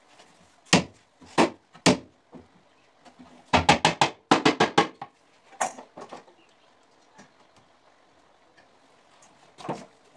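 Sharp knocks and bangs: three single knocks in the first two seconds, then two quick runs of about five rapid blows each around the middle, and a few scattered knocks later.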